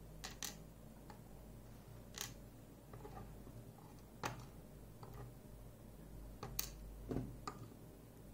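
Scattered small sharp clicks and taps from lock parts and tools being handled while a pin-tumbler lock cylinder is taken apart.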